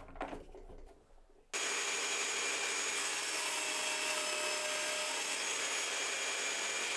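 A few faint clicks as a table saw's mitre gauge is set. Then, about a second and a half in, the table saw comes in abruptly, running steadily while it makes an angled crosscut through a block of oak.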